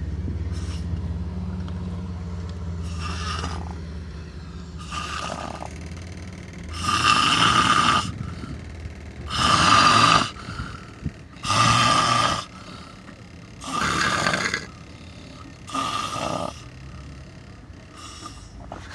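A person snoring, one harsh snore roughly every two seconds, the snores growing loud from about seven seconds in and weakening near the end. A low steady drone underlies the first six seconds or so, then fades.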